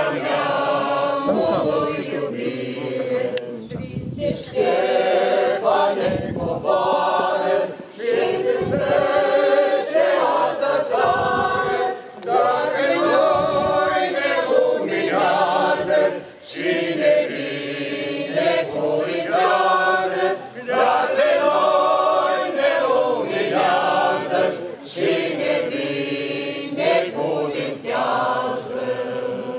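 A choir singing unaccompanied, in long phrases with brief breaks between them.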